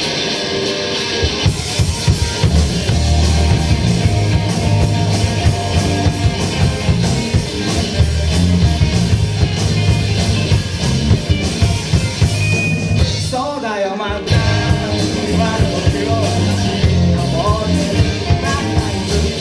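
Live rock band playing: drum kit, bass and electric guitar. About two-thirds of the way through, the drums and bass drop out for a moment under a wavering pitched line, then the full band comes back in.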